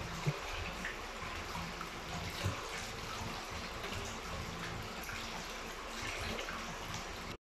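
Water sloshing and splashing in a stainless-steel sink as hands rinse boiled beef face meat, with water pouring off the hands back into the basin. Two soft knocks come in the first few seconds, and the sound cuts off abruptly at the end.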